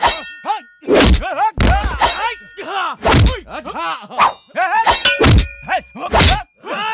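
Film fight sound effects: about eight sharp punch and kick whacks in quick succession, with short grunts and cries of pain between the blows.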